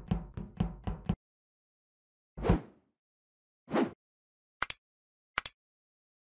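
Like-and-subscribe end-screen sound effects: a quick run of short thuds in the first second, two whooshes, then two sharp mouse clicks as the like and subscribe buttons are pressed.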